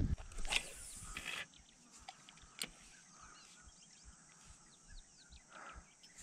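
Faint, scattered bird chirps and twitters, with two brief rustling swishes in the first second and a half.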